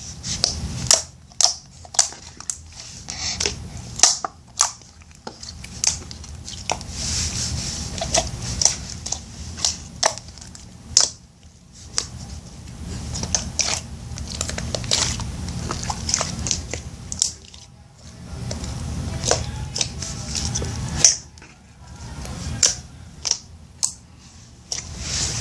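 Homemade slime being squeezed, stretched and poked by hand, making many sharp clicks and pops with stretches of crackly squishing between them.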